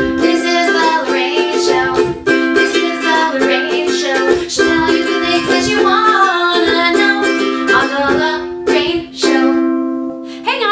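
Intro theme music with quick plucked string notes over a held tone.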